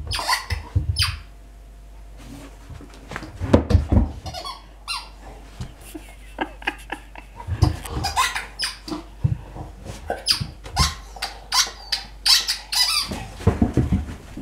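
A dog's squeaky toy ball being squeezed over and over as the dog chews it, giving irregular clusters of short, sharp squeaks with a brief pause near the start and a few dull knocks among them.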